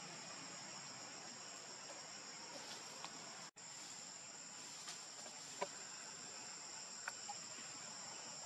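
Steady high-pitched chorus of insects, with a few short faint chirps, broken by a split-second gap a little over three seconds in.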